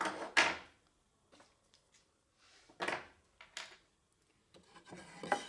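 Several short scrapes and rustles of hand work, each about half a second long: wood and tools being handled and slid about on a work table.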